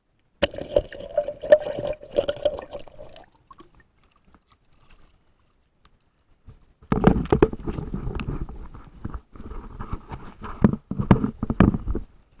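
Water splashing and sloshing close by, in two spells: one starting about half a second in, then a longer, louder one from about seven seconds in, with a near-silent gap between them.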